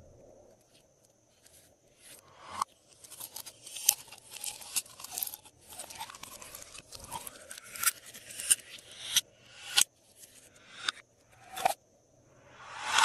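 Glossy slime being squished and worked by hand: sticky crackling and popping in swells that build and end in a sharp pop about once a second, after a quiet first two seconds.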